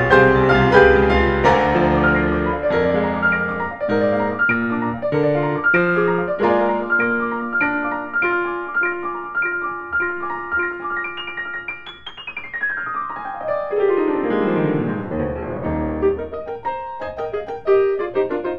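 Classical piano music played live: fast, dense runs and chords. About twelve seconds in, a rapid downward sweep across the keyboard ends in loud low notes.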